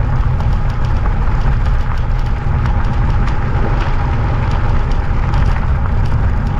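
Steady, loud wind rush buffeting the microphone of a moving e-bike, mostly low rumble.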